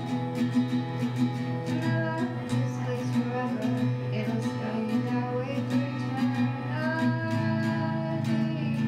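A young girl singing while strumming an acoustic guitar: a steady strummed accompaniment with her sung melody over it, clearest from about two seconds in.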